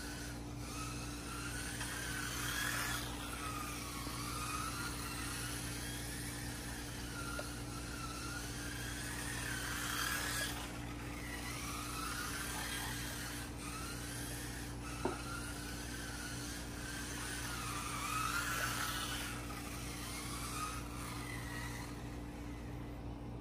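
Kyosho Mini-Z MR03 RC car's small electric motor whining. Its pitch rises and falls over and over as the car speeds up and slows around the track. A steady low hum runs underneath, with a single click about two-thirds of the way through.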